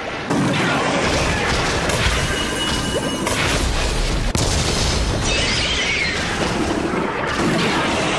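Tokusatsu explosion and crashing sound effects: a loud blast about a third of a second in, then continuous heavy rumbling and crashing as fire erupts around a giant monster.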